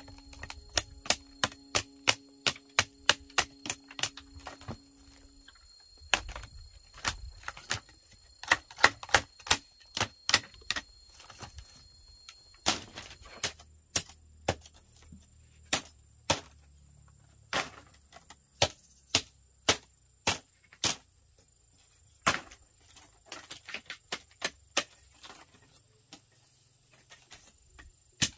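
A machete chopping and splitting bamboo: a long string of sharp, irregular cracks and knocks, one to three a second.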